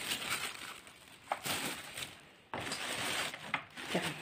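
Thin plastic bag crinkling and rustling as it is handled around a boxed stand mixer. It comes in two stretches, with a short lull about two seconds in.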